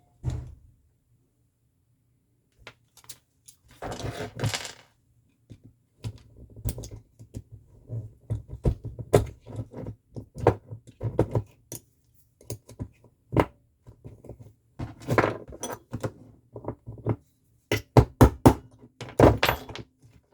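Irregular clicks, taps and short scrapes of small metal parts being handled and prised apart: a hood lock cylinder being dismantled with hand tools, its pins worked out one by one.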